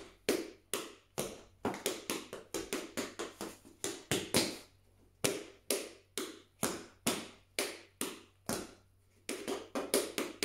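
Tap shoes' metal taps striking the floor in a tap-dance time-step combination. The taps come as quick rhythmic runs of clicks, with two brief pauses.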